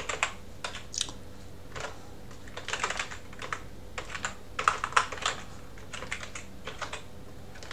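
Computer keyboard typing: irregular runs of keystrokes with short pauses between them.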